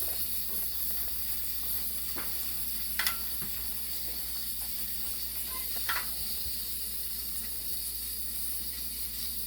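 Instant Pot electric pressure cooker venting steam through its pressure-release valve: a steady hiss as the pressure is let out after cooking. A few light clicks about two, three and six seconds in.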